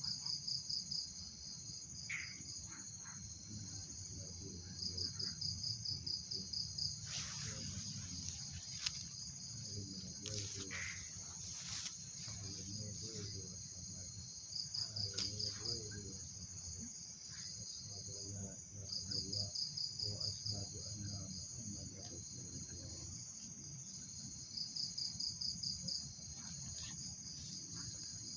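Night insects chirping: a steady high-pitched trill, with a louder burst of rapid pulsed chirps rising out of it about every five seconds, each lasting a second or two.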